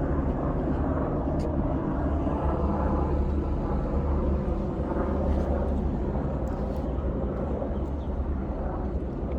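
Steady low rumble of a moving vehicle, with faint voices underneath.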